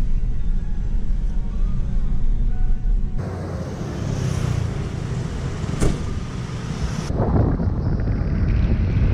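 Road vehicle noise in three cut-together stretches: a steady low rumble inside a moving van, then street traffic with one sharp click about six seconds in, then a motor scooter riding along a street with wind on the microphone.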